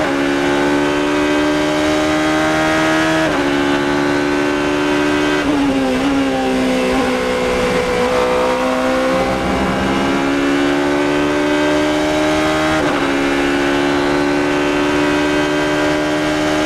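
Ligier JS P2 LMP2 prototype's engine heard from the cockpit under hard acceleration, revs climbing through the gears with an upshift about three seconds in. Around five to six seconds in the revs drop with quick downshifts for a fast corner, then climb slowly back to full throttle, with another upshift near the end.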